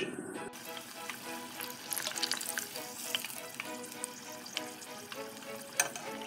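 Hot cooking oil sizzling and crackling as onion halves fry in a pot, starting about half a second in, with background music. A sharp tap near the end.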